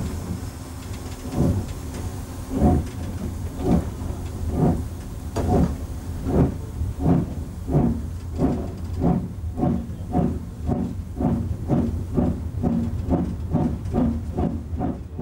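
Steam locomotive exhaust chuffing as the engine pulls away with the regulator open. The beats quicken steadily from about one a second to about three a second as it gathers speed, over a steady low rumble, heard from the cab.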